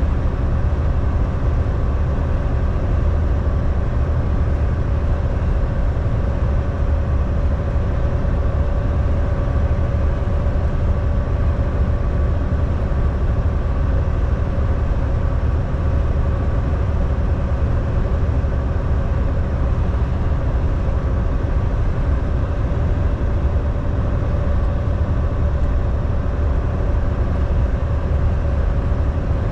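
Semi-truck driving at a steady pace: a constant low diesel engine drone and road rumble, with a faint steady hum over it.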